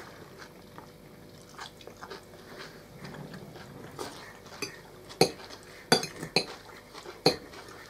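Metal forks clinking and scraping against plates during a meal, quiet at first, then about half a dozen sharp clinks in the second half.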